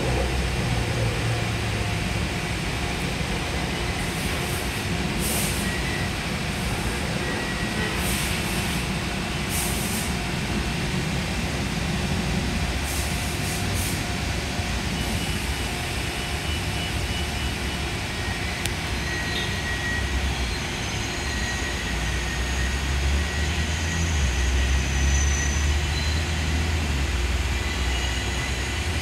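Steady low rumble of a subway train on the elevated line out of view, growing louder near the end, with brief high hisses early on and a faint thin whine later.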